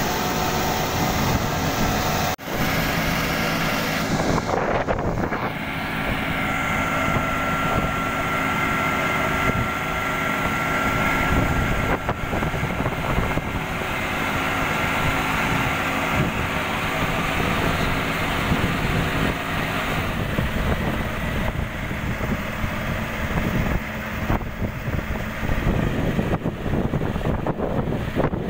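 Combine harvester diesel engine running steadily under load while towing a bogged-down combine through paddy mud. A high, steady whine joins for several seconds about a quarter of the way in.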